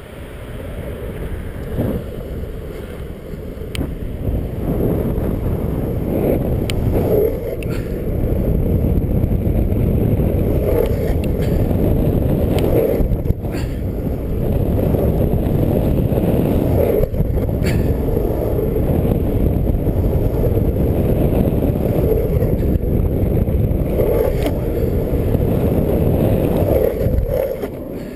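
Heavy wind buffeting the microphone of a rider-mounted camera on a longboard descent, over the rumble of the wheels rolling on asphalt. It grows louder over the first several seconds as speed builds, then holds steady, with a few faint clicks.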